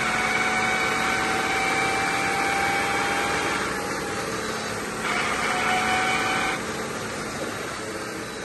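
BMW X5 F15 front differential howling under drive, a steady pitched whine that climbs slightly, eases off, swells again about five seconds in, then fades. The whine comes from a worn ring and pinion: the gear set is damaged while the bearings are intact, and the drained oil carries metal shavings.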